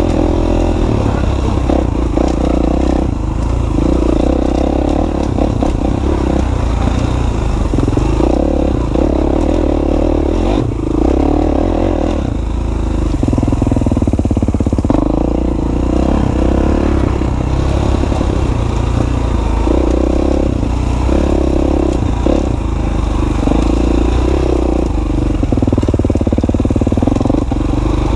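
Dirt bike engine heard from on the bike while it is ridden along a winding dirt trail, the throttle opening and closing every second or two so the engine note repeatedly rises and drops back.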